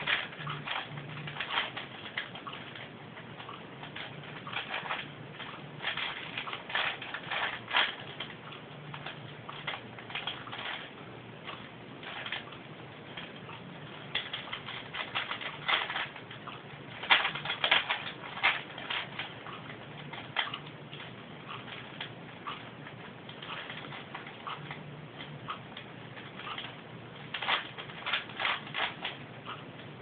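Plastic clicking and rattling of a 4x4x4 Rubik's Cube being turned by hand, in flurries of quick layer turns with short pauses between.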